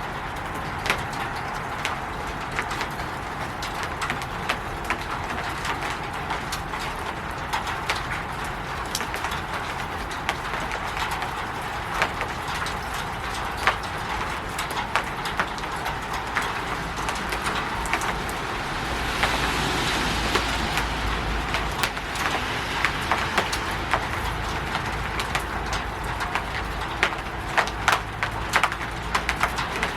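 Rain falling on a roof: a steady hiss with many sharp, separate drops tapping on it. About two-thirds of the way through it swells louder for a few seconds, and a low rumble comes in and stays.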